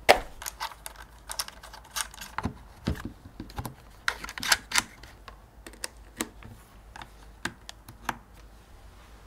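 Irregular sharp clicks, taps and a few duller knocks of small hard objects being handled. They come thickest in the first half, with a quick run of clicks about four to five seconds in, and die away after about eight seconds.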